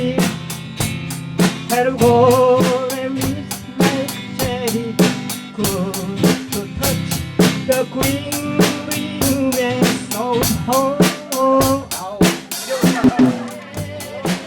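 Music with a steady drum-kit beat, bass and snare, under a melody line.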